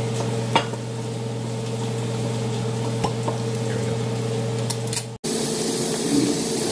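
Steady hum of a fan or ventilation unit in a small room, with a sharp click about half a second in and a couple of light ticks around the middle. About five seconds in the sound cuts out for an instant and returns with a different, hissier hum.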